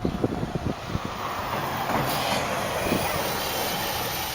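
A sled sliding and scraping over packed snow, a steady rumbling hiss with small knocks that swells about two seconds in and then fades.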